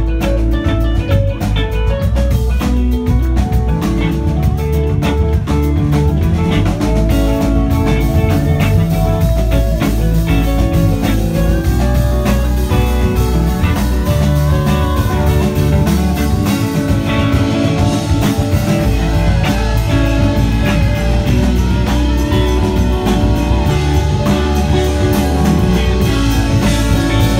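Live band playing an instrumental passage without vocals: Roland keyboard, guitar and drum kit together at a steady loud level.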